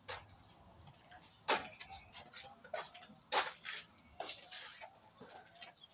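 Irregular light clicks and knocks, about six of them a second or so apart, from tools and the steel pipe being handled before the grinder is started.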